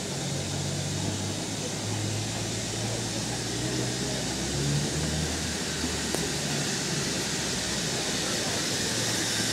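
Steady low mechanical hum under a constant hiss, with no clear beat or rhythm.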